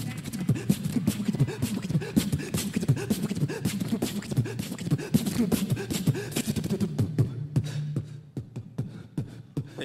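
Vocal percussion: a beatboxer making fast drum-like clicks and hits into a handheld microphone, with low voiced tones under the beat. Near the end the rhythm thins out to a few scattered clicks.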